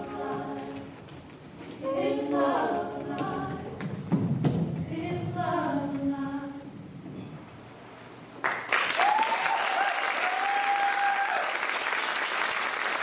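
Unaccompanied choir singing in slow held chords, in three phrases, the last fading out about seven seconds in. Then the audience suddenly breaks into applause about eight and a half seconds in, with a cheer over it for a few seconds.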